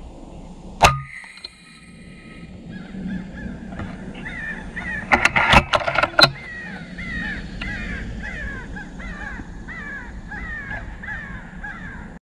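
A single sharp report from an FX Impact .30-calibre PCP air rifle about a second in, then a crow on the ground flapping its wings hard a few times and cawing over and over, about two falling calls a second.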